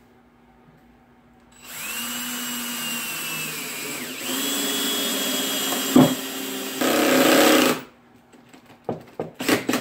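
Cordless drill driving a 3-inch wood screw into wooden boards: the motor starts about a second and a half in and runs for about six seconds, its whine dipping briefly partway through as the screw bites, then running on more loudly before it stops. A few short clicks follow near the end.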